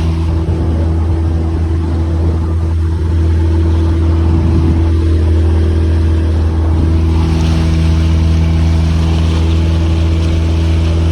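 A fishing boat's engine running steadily with a low, even drone. Its note wavers for a few seconds in the middle, then settles again.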